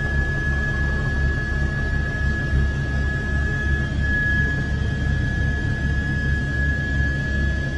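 Helicopter rotor and turbine engine running steadily, heard from aboard the aircraft: a low, even throbbing under a constant high whine.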